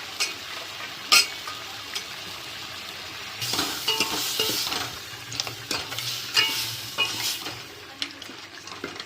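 Crab legs frying and sizzling in a pan of spiced onion-tomato masala as they are stirred, the spoon knocking sharply against the pan several times. The sizzle grows louder about three and a half seconds in.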